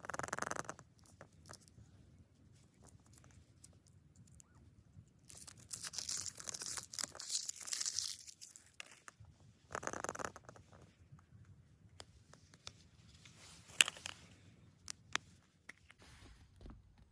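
Foil wrapper of a Kinder Surprise egg being torn and crinkled in several bursts, the longest about three seconds. Scattered sharp clicks and taps follow near the end.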